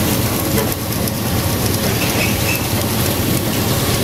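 Steady rushing hiss of shredded refuse-derived fuel falling in a continuous stream, over a steady low hum of the processing plant's machinery.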